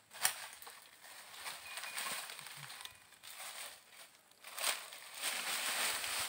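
Crackling and sloshing noises from hands groping in shallow muddy stream water under a log and feet moving over dry twigs and leaves, with two sharp cracks, one just after the start and one about two-thirds through.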